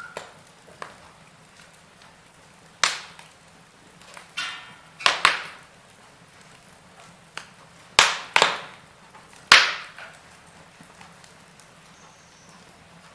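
Wood fire in a fireplace crackling, with a handful of sharp, loud pops a second or more apart, two of them close together, over a faint steady hiss.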